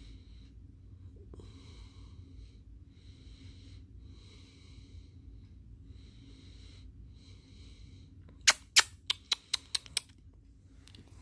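A long-haired cat sniffing at a grass blade held to its face, its breath heard as short hissy puffs about once a second. Near the end comes a quick run of about seven sharp clicks.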